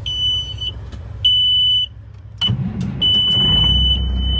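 A 2005 Peterbilt 379's dash warning buzzer sounds in short high beeps about once a second. About two and a half seconds in, the Caterpillar C-15 diesel cranks and fires, settling into a steady low idle while the buzzer turns into one continuous tone.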